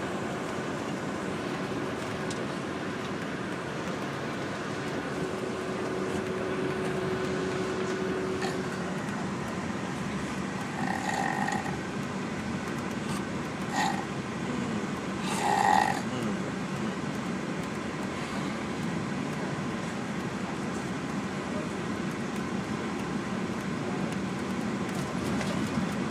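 A man snoring on a moving bus over the bus's steady engine and road rumble, with three short, louder snorts near the middle.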